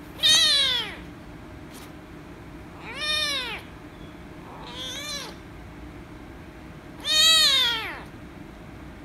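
Young kitten meowing loudly four times, each call rising and then falling in pitch, the third softer and the last the longest. It meows as it is petted on the head, which the owner takes for anger at being petted.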